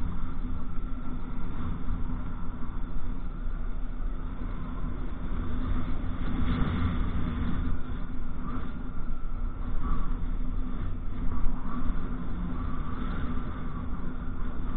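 Motorcycle riding along at a steady speed: its engine running under a steady rush of road noise.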